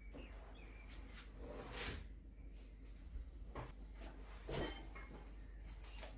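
A few separate knocks and clatters of household things being handled and put away while organizing.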